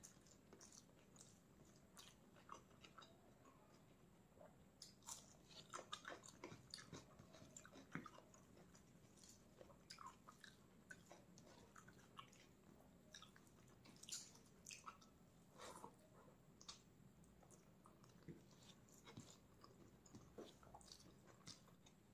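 Quiet, close-miked chewing and biting of food: irregular short clicks, soft crunches and wet mouth sounds.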